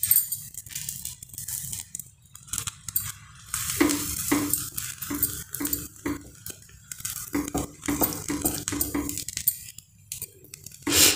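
Butter crackling and sizzling on a hot tawa under grilling bread sandwiches, with light clicks and handling sounds as the sandwiches are set down and pressed; there is a short louder burst near the end.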